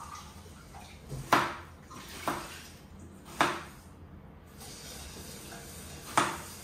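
Kitchen work with water and dishes: four short splashing, clattering noises, three close together in the first few seconds and one near the end, each dying away quickly.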